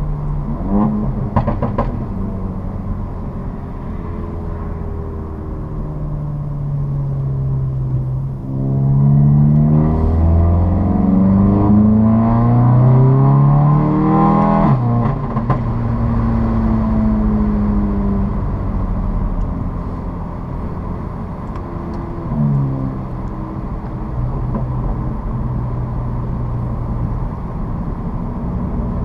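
2015 VW Mk7 GTI's turbocharged 2.0-litre four-cylinder running through an APR downpipe and Borla S-Type catback exhaust with an APR Stage 2 crackle tune. A few sharp cracks come about a second in. Later the engine pulls hard with its pitch rising for several seconds, drops abruptly at a gear change, winds down, then briefly rises and drops again near the end.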